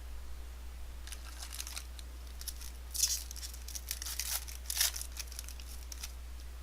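Trading card pack wrapper being torn open and crinkled: a run of crackling rips, loudest about three seconds in and again near five seconds.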